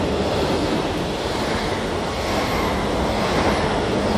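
Double-deck electric express train passing close by at speed: a steady, loud rush of wheel-on-rail noise and moving air.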